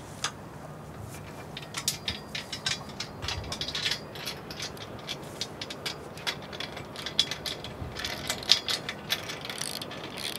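Hand socket ratchet clicking in quick runs of strokes as it tightens the bolt of an L foot onto a metal rail leg of a solar ground-mount rack.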